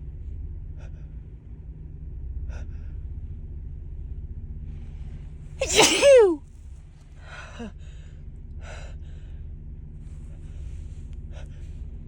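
A woman with a head cold sneezing once, loudly, about halfway through: a sharp gasping in-breath straight into a voiced "ah-choo" that falls in pitch, followed by two short breaths.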